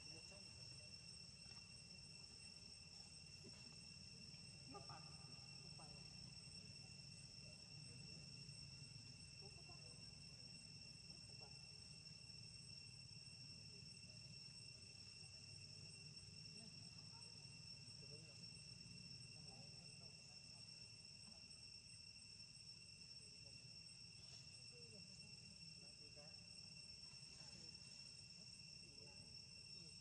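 Faint, steady high-pitched drone of insects calling without a break, over a low background rumble.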